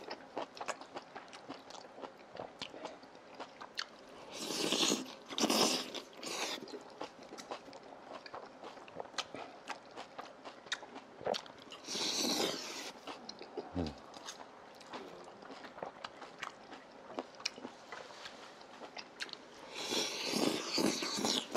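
Close-up eating sounds: chewing and chopsticks clicking against bowls, with three loud slurps, about five, twelve and twenty seconds in, as mouthfuls of spicy stir-fried food and rice are sucked in.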